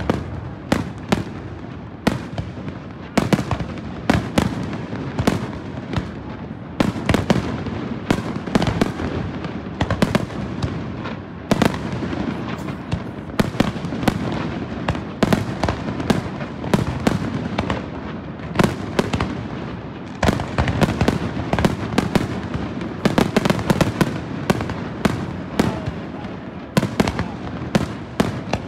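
Aerial fireworks display: a dense, continuous barrage of sharp shell bursts, several bangs a second, with no real pause.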